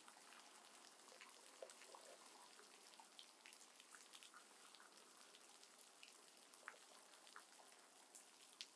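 Near silence: faint hiss with a few tiny clicks.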